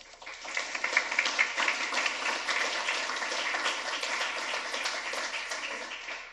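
Small audience applauding. The clapping builds within the first second, holds steady, and dies away at the very end.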